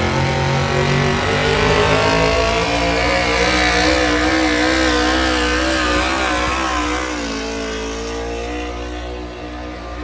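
Pickup truck engine at full throttle, hauling a weight-transfer pulling sled, its note wavering as the truck pulls. About seven seconds in the pitch drops and the sound fades as the truck lets off at the end of the pass.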